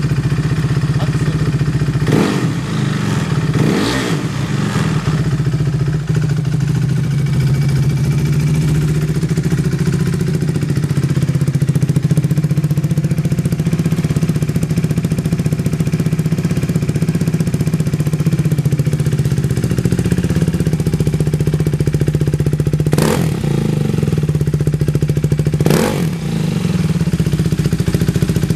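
KTM RC390's single-cylinder engine idling steadily, with two brief throttle blips a few seconds in and two more near the end. The idle is stable and free of abnormal noises.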